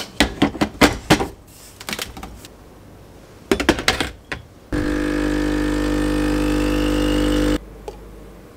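Rapid knocks of ground coffee being tapped from a grinder cup into an espresso portafilter, a few clicks as the portafilter is handled and locked in, then a De'Longhi EC685 espresso machine's pump buzzing steadily for about three seconds before cutting off suddenly.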